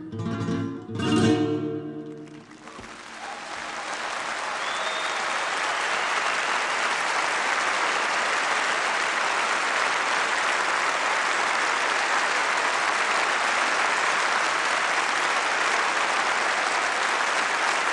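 The last chords of an acoustic guitar ring out for about two seconds and die away. Then a large audience breaks into applause that builds over a few seconds and holds steady.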